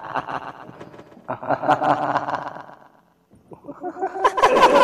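Experimental horror sound collage: distorted, layered voices crossed by rapid sharp clicks. It drops out briefly about three seconds in, then builds to a loud burst near the end.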